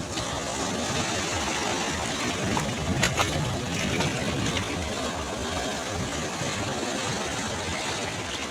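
Sea waves breaking and washing in: a steady rush of surf, with a brief fizz of foam about three seconds in.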